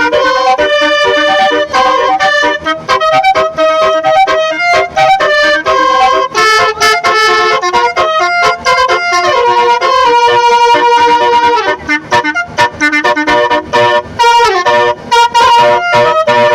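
Basuri musical vehicle horn, a telolet-style melody horn, playing a continuous loud tune of buzzy, reed-like notes that step quickly from pitch to pitch.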